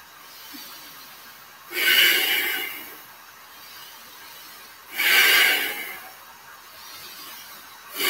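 A man breathing deeply and audibly: three breaths about three seconds apart, each about a second long.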